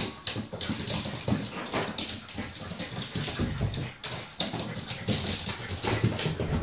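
Two puppies play-wrestling on a hard floor: small whines and yelps mixed with the irregular scuffing and clicking of paws and claws scrabbling on the boards.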